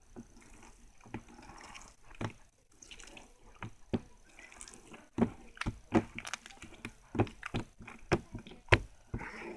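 Slime being squished and poked by hand: irregular wet clicks and pops, sparse at first and coming faster and louder in the second half.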